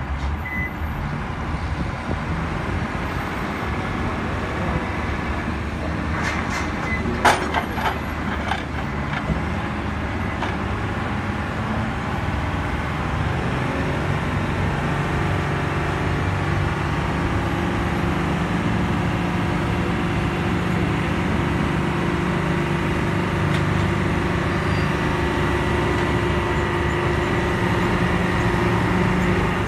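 Diesel engines of port cranes and heavy vehicles running steadily, with sharp metallic clanks about seven seconds in. A truck's diesel engine grows louder through the second half as it pulls up close.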